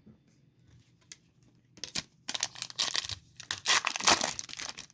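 Foil trading-card pack wrapper being torn open and crinkled, a dense crackling that starts about two seconds in and runs for about three seconds.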